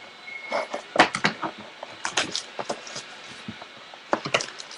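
Trading cards and their plastic holders being handled: a string of irregular small clicks, taps and rustles.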